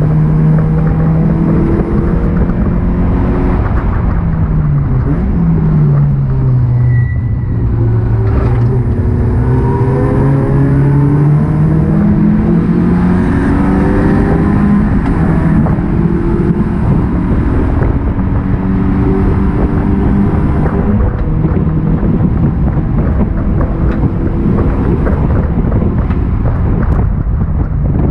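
Honda Accord race car engine heard inside its stripped cabin, loud over road and drivetrain noise. It drops in pitch as the car slows for a corner, then climbs again through the gears as it accelerates, with the pitch falling back at each upshift.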